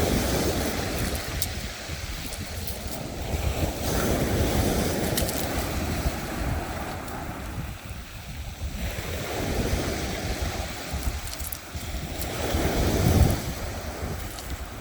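Wind buffeting the microphone over open sea water, with waves surging louder every few seconds.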